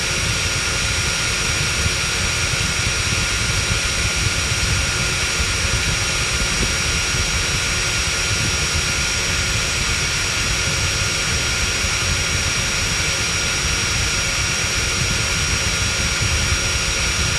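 Dyson V7 Motorhead cordless stick vacuum running steadily at full power, its motorized brush roll spinning: rushing air with a steady high-pitched motor whine.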